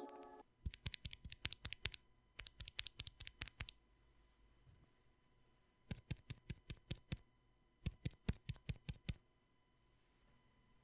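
Typing on a 60% mechanical keyboard with lubed, filmed linear switches, a carbon fiber skeleton case and PBT keycaps. There are four quick runs of keystrokes at roughly ten a second, separated by short pauses.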